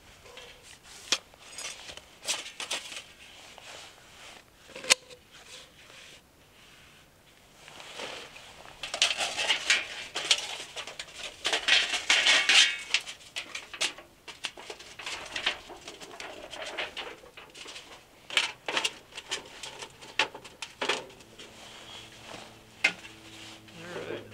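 Thin titanium panels of a small Titanium Goat folding wood stove being handled and slotted together: scattered light metallic clicks, clinks and knocks, with a stretch of scraping and rustling around the middle.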